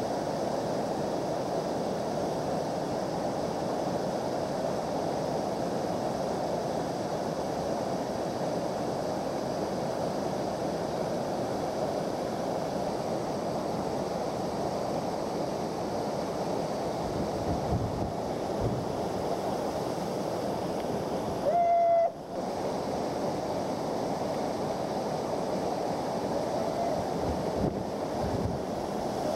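Steady roar of a creek waterfall pouring over a steep drop. About three-quarters of the way through, a short steady tone sounds for under a second and the sound briefly drops out.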